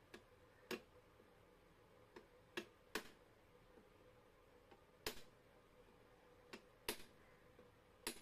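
Small ball-peen hammer lightly tapping a steel punch held against an old ceiling fan motor's hub: about ten faint, sharp metallic taps at uneven intervals, some in quick pairs.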